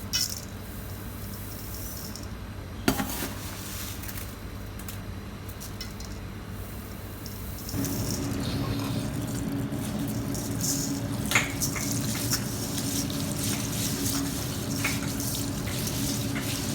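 Water at a kitchen sink with a few sharp clinks; about eight seconds in, a tap starts running steadily with a constant hum.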